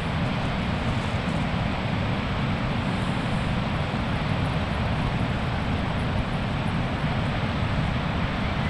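Steady wind buffeting the microphone in a low, fluctuating rumble, mixed with the continuous wash of breaking surf.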